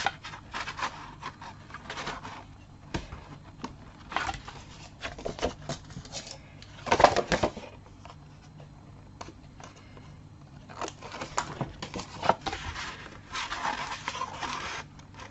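Paper and cardstock being handled and worked into place: rustling, sliding and light scattered taps and clicks, with louder rustles about seven seconds in and again near the end.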